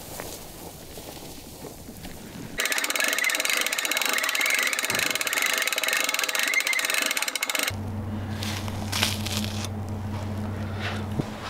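Quiet outdoor air, then from about two and a half seconds in a hand-crank winch on a game-hoist rack ratcheting rapidly for about five seconds. After it stops, a steady low hum with a few small clicks and scrapes.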